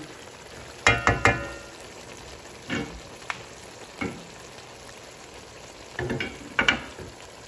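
Chicken jalfrezi curry gravy sizzling gently in a wok over the heat. Sharp pops and clicks break through the sizzle: a quick cluster about a second in, a few single ones, and another pair near the end.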